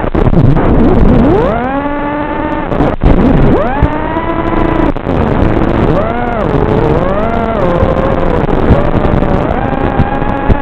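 Racing quadcopter's electric motors whining, the pitch repeatedly swooping up and down with the throttle, at times with two pitches at once.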